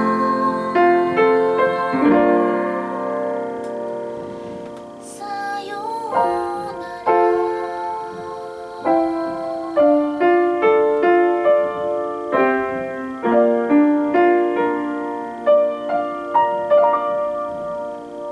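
Upright acoustic piano playing a slow, gentle ballad, a melody over chords, with a softer stretch about five seconds in before the chords pick up again.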